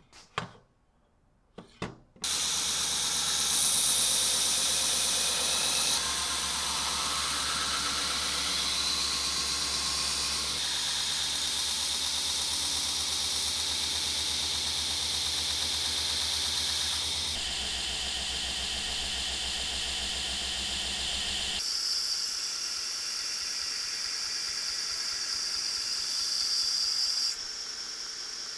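A few short knocks as the blade is clamped into a grinding jig, then a belt grinder running with its abrasive belt grinding the bevel of a file-steel knife blade: a steady hiss over the low hum of the motor. The sound shifts abruptly several times between takes.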